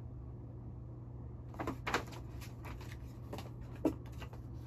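Folded paper posters being handled and unfolded: a few short, crisp paper crackles and snaps starting about a second and a half in, over a steady low hum.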